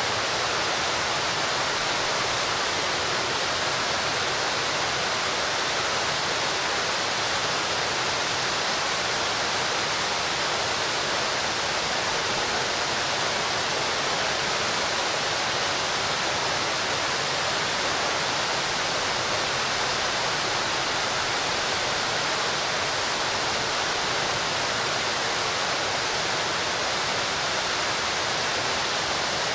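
Fountain water pouring from a raised bowl and splashing into the pool below: a steady, even rush of falling water.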